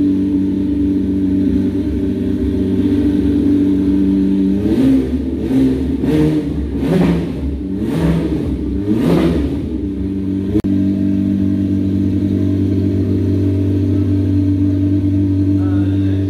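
Chevrolet Corvette C8 Stingray's 6.2-litre LT2 V8 idling steadily. About five seconds in, the throttle is blipped through several quick revs, each rising and falling in pitch. After about five seconds of revving it settles back to idle.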